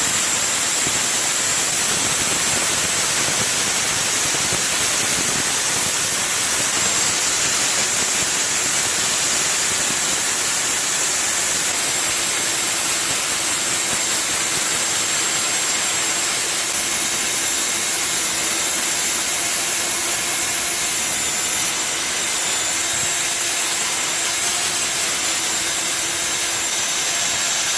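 Electric wet core drill running steadily, a continuous motor whine over a loud hiss.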